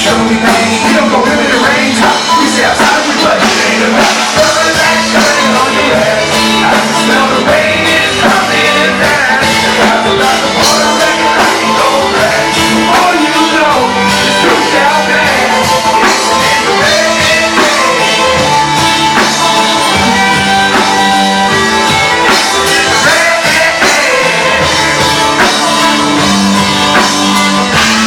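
Live band music with vocals: loud, dense rock or hip-hop backing with drums, playing steadily throughout.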